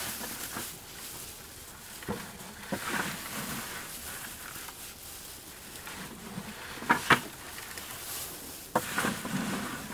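Dry straw and shredded paper rustling as gloved hands drop and mix handfuls of them into a compost pile, with a few sharp knocks, two close together about seven seconds in.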